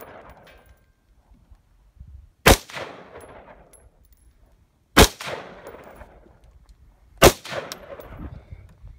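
Three AR-15 rifle shots about two and a half seconds apart, each loud crack trailing off in an echo.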